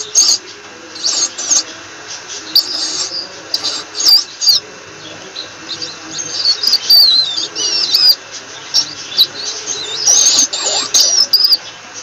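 Rat squeaking: clusters of short, high squeaks and chirps, some sliding in pitch, coming every second or so, with sharp little clicks among them. The longest run of falling squeaks comes just past the middle.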